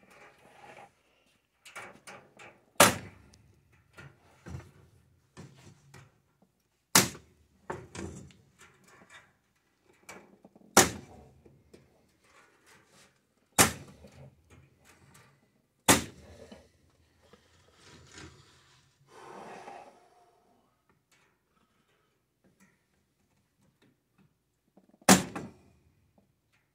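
Six sharp, loud clacks spaced several seconds apart, from a hand tool worked on a wood-framed chicken-wire panel, with quieter knocking and rustling of the panel and tools between them.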